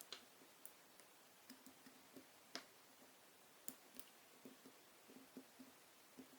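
Faint, irregular clicks and ticks of a hook pick working the pin stacks inside an ABUS 34CS-55 padlock's tight keyway.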